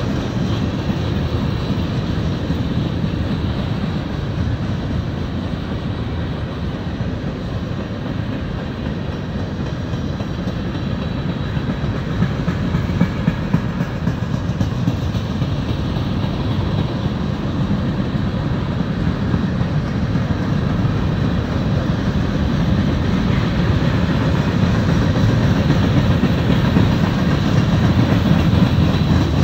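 Freight cars of Norfolk Southern train 62V rolling past at a steady speed. Their steel wheels keep up a steady rumble on the rails, with a few louder clacks about halfway through and near the end.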